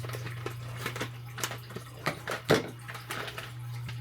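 Coffee machine's water tank being filled under a running tap, with a steady low hum and scattered light clicks and knocks, the sharpest about two and a half seconds in.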